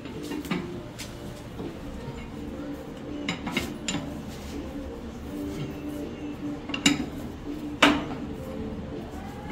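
Metal clinks and knocks as a steel bar works a screw-type support stand under a generator trolley: scattered light taps, then two sharp clanks near the end.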